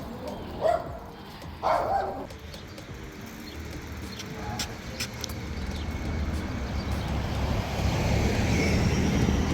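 A dog barks twice, then a low rumble builds up and grows louder over the last few seconds.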